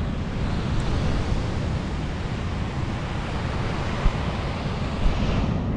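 Strong wind buffeting the microphone over the steady rush of surf breaking on an open beach.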